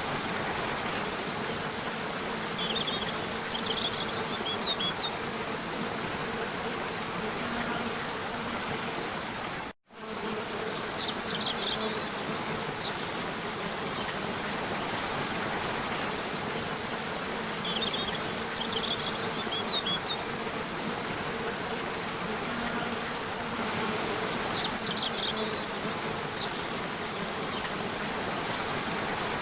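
Nature ambience of insects buzzing steadily over a constant hiss, with short high chirps coming back every few seconds. The sound drops out for an instant about ten seconds in.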